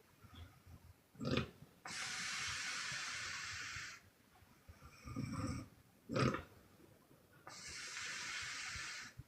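A sleeping woman snoring on the exhale with loud puffing breaths. Twice, a short sharp puff comes before a long hissing breath of about two seconds, and there is a low snore just before the second puff.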